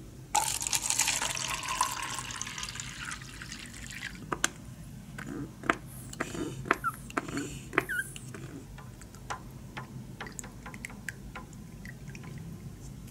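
Water poured into a clear plastic cup for about four seconds, then stirred with a thin stick that clicks and taps against the cup wall several times.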